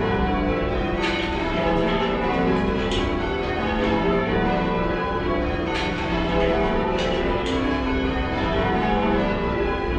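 A light ring of ten church bells being rung in changes, heard from the ringing room below the bells: a continuous, even stream of overlapping bell strikes, rather quiet and slightly mushy.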